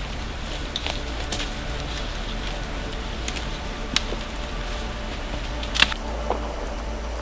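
Dry leaves rustling and twigs crackling under boots and gear, with scattered small snaps and a louder snap about six seconds in, over a steady low rumble of wind on the microphone.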